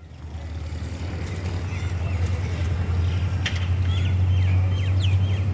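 Small birds chirping in quick, repeated short calls over a steady low rumble, the sound fading up from silence at the start.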